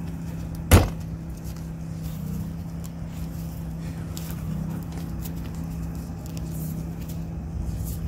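A steady low motor hum, with a single sharp knock about a second in.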